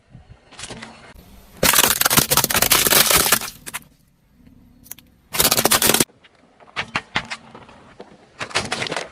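Objects cracking and crunching as they are crushed under a car's tyres, in separate bursts: a long crunch about two seconds in, a shorter one past the middle, and a few sharp cracks near the end.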